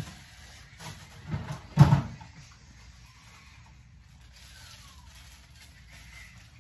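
Kitchen handling noises: a few knocks and a louder thump about two seconds in, then quiet room tone.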